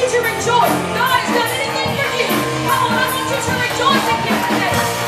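Live church worship band playing, with a woman singing lead over other singers, bass guitar and keyboard, recorded on a small camcorder's built-in microphone.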